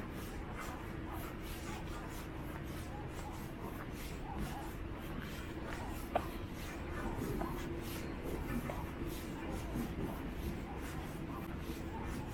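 Footsteps crunching on a gravel trail at a steady walking pace, about two steps a second, over a faint steady hum, with one sharp click about six seconds in.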